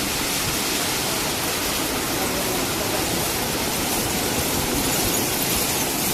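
Automatic car wash machine spraying water over a car: a loud, steady rushing hiss of the jets.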